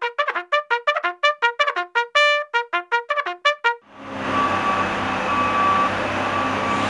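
Brass music: a quick run of short staccato trumpet-like notes, about six a second, with one longer held note about two seconds in, stopping just before four seconds. A steady dense rushing noise with faint held tones then takes over.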